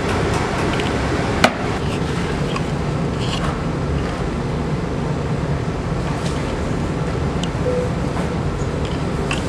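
Steady background noise of a pottery studio, with one sharp knock about one and a half seconds in and a few faint ticks.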